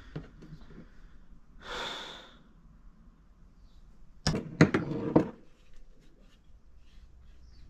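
Sharp knocks and clicks of hard plastic parts being handled during a blender teardown, a quick cluster of them about four to five seconds in, with a short hiss about two seconds in.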